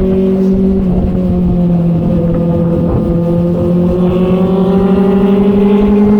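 Inline-four sport motorcycle engine pulling at steady revs while riding. The revs ease slightly about a second in, then climb slowly through the rest.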